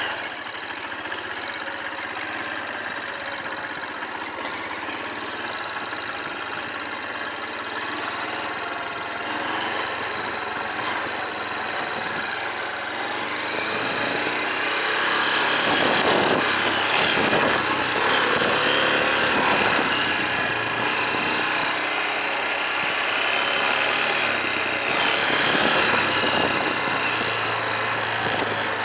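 Honda dirt bike engine running, steady at first, then louder from about halfway through with pitch rising and falling as it is revved.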